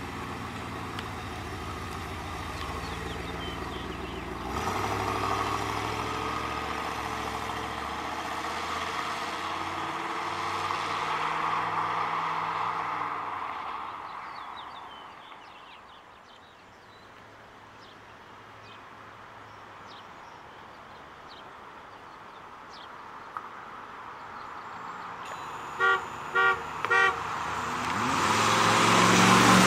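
1992 Pontiac Firebird Formula's 5.0-litre TPI V8 running as the car drives off, fading away after about a dozen seconds. Near the end a car horn toots three times quickly, then the V8 grows louder as the car comes back towards the listener.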